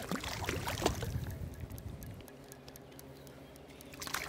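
A small hooked fish thrashing at the surface of a river, splashing hard for about two seconds. A last splash near the end as it drops back into the water, off the hook.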